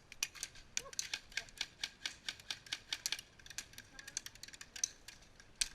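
Airsoft guns firing: many sharp, snapping shots in quick, irregular strings, several a second.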